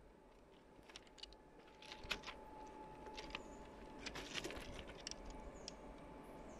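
Quiet night ambience: scattered short ticks and chirps, with a faint steady tone starting about two seconds in.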